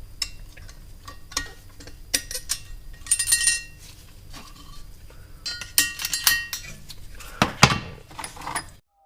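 Small steel engine parts clinking and clattering against each other and the bench as they are handled: sharp metallic clinks with a short ring, in several quick clusters, cutting off suddenly near the end.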